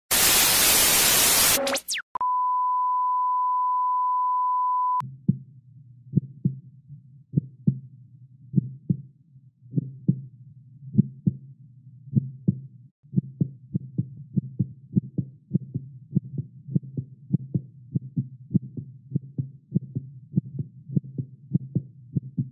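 Soundtrack effects: a burst of television static hiss, then a steady high beep tone for about three seconds that cuts off abruptly. A heartbeat sound effect follows, paired low thumps over a low hum, beating faster about halfway through.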